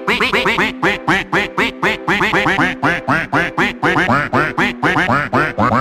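Rapid run of duck quacks in an even rhythm, several a second, set over music with steady held notes.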